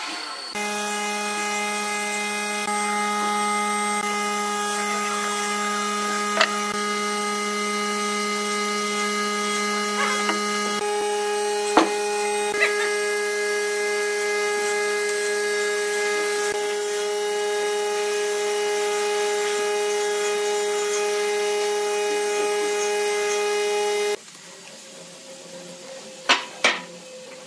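An electric motor, likely a power tool's, running at a steady speed: a constant whine of several steady tones with a few light knocks over it. It cuts off abruptly about 24 seconds in, followed by two sharp knocks.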